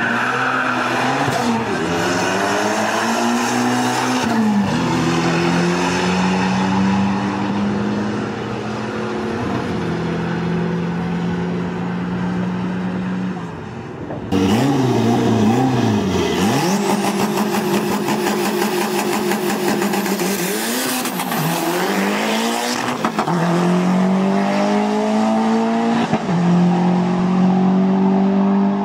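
Drag cars accelerating hard at full throttle, engine pitch climbing steadily and then dropping sharply at each gear shift. In the first half it is a minivan with a Mitsubishi 4G63 four-cylinder swapped in; about halfway in there is a sudden cut to another run with the same climbs and shift drops.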